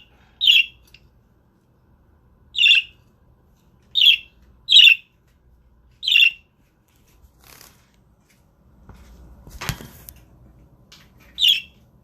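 Budgerigar giving short, sharp contact calls, six single chirps spaced a second or more apart. About ten seconds in there is a sharp knock with a brief rustle.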